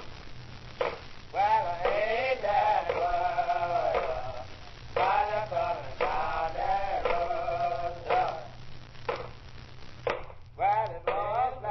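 Music with a male voice singing in short phrases with held notes, separated by sharp percussive hits.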